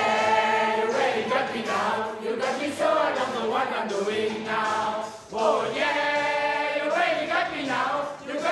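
A mixed choir of older men and women singing a rock song together, with long held notes and a brief break between phrases about five seconds in.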